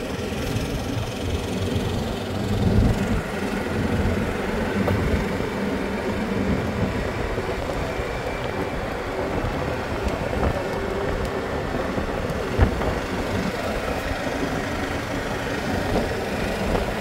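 Golf cart driving along a paved road: steady motor and road noise with an uneven low rumble, and one sharp knock about three-quarters of the way through.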